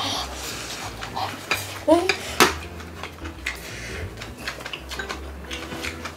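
Metal spoons and chopsticks clinking and scraping against ceramic bowls and a pan during a meal: a series of light, irregular clicks.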